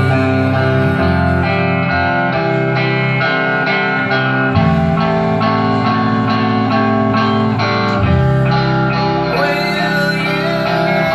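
A rock band playing live: guitars picking a steady, repeating figure over a bass line whose note changes about every three to four seconds.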